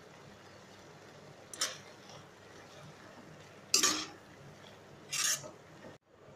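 A spoon stirring thick rajma curry in a non-stick pan, scraping the pan in three short strokes, the loudest about two-thirds of the way through.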